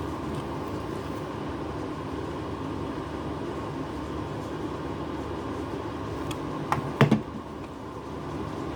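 A steady mechanical hum with a few sharp clicks coming close together about seven seconds in.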